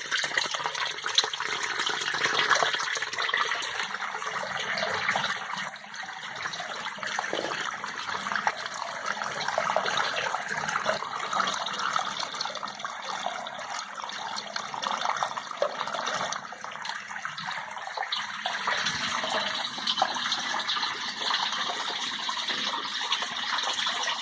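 Water running and splashing in a steady gush, the flow wavering a little in strength but never stopping.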